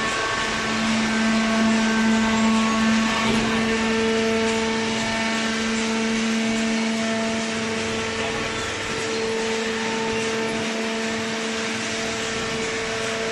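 Hydraulic waste paper baler running: a steady machine hum and whine from its motor and hydraulic pump, with no pauses.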